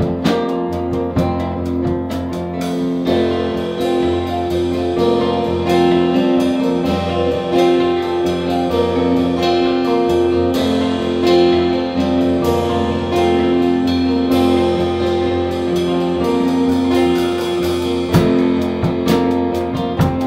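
A live acoustic americana-blues band plays an instrumental break with no singing. Held melodic notes run over the band's accompaniment, with a few sharper strummed or struck accents near the end.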